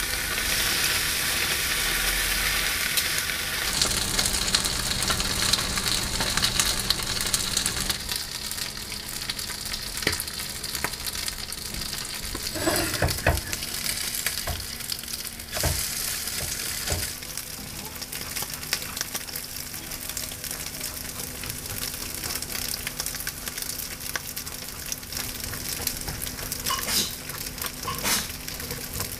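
Ham slices and an egg with imitation crab sizzling steadily in a nonstick frying pan, the sizzle fuller for the first several seconds after the ham goes in. A few short knocks and clicks of a spatula in the pan cut through it, a cluster about halfway and a couple near the end.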